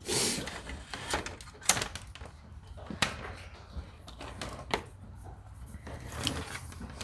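A short rustle, then a handful of separate sharp clicks and knocks, like objects being handled and set down.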